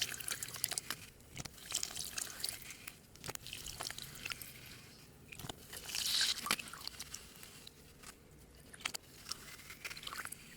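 Slime being squished and worked, with many small sticky crackles and pops and a louder squelching patch about six seconds in.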